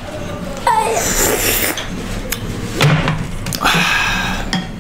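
Close-miked slurping of pork thukpa noodle soup, in two noisy spells about a second in and near the end, with spoons clicking against ceramic bowls.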